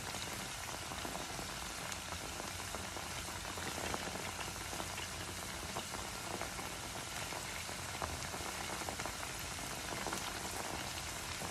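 Cornstarch-coated chicken pieces frying in hot oil in a pan: a steady sizzle with a few faint clicks.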